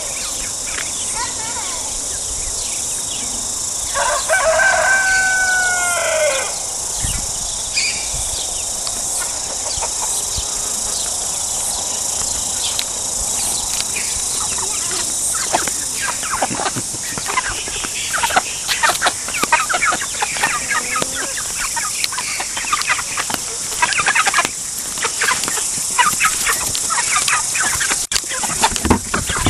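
Chicken flock clucking, with a rooster crowing once about four seconds in, the loudest sound. From about fifteen seconds on, short clucks come thick and fast over a steady high hiss.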